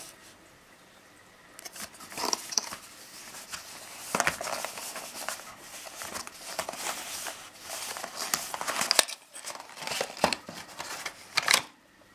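Small cardboard retail box and its packaging handled by hand: irregular rustling, scraping and sharp clicks and taps as the box is slid open and the contents taken out, starting after about two quiet seconds.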